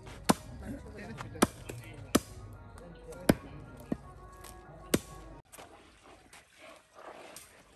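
Cleaver chopping beef on a wooden block: six sharp chops at uneven intervals of about a second, which stop about two-thirds of the way in.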